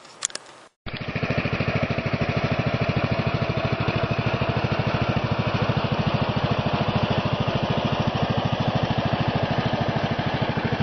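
Lawn mower engine running steadily with a fast, even pulse, starting abruptly about a second in.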